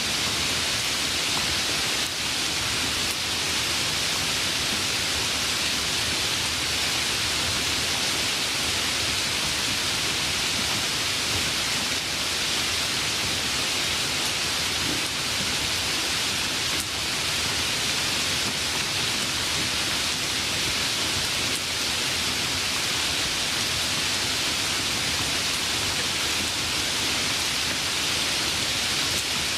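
Steady rain falling without letup, an even hiss.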